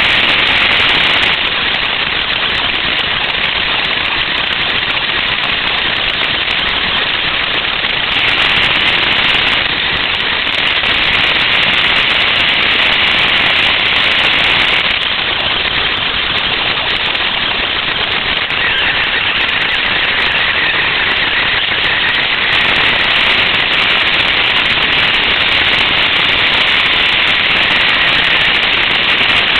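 Radio-controlled car driving, its drivetrain and tyres heard through a camera mounted on the car as a loud, harsh, steady noise that grows and eases in loudness every few seconds as it drives.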